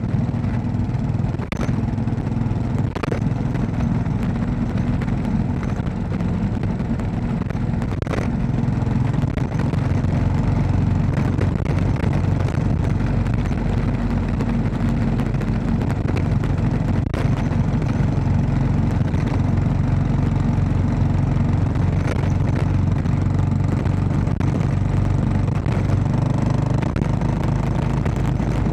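Royal Enfield Classic 500's single-cylinder engine running steadily while riding on a gravel road, with tyre and road noise over it. A few sharp knocks come through, and the engine gets a little louder about nine seconds in.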